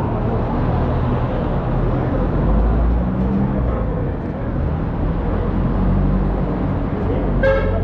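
A vehicle running: a steady low rumble, with a short call from a voice near the end.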